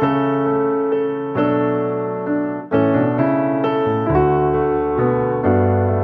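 Background piano music: slow, sustained chords struck about every second or so.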